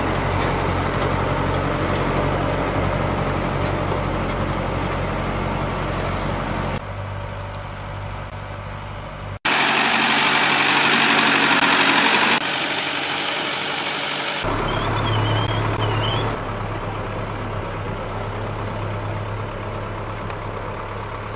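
Tractor engine running steadily while pulling an inter-row corn cultivator through a maize field, heard in several short clips joined by cuts. About halfway through, the engine gives way for a few seconds to a loud hiss, and a brief run of chirps follows before the engine sound returns.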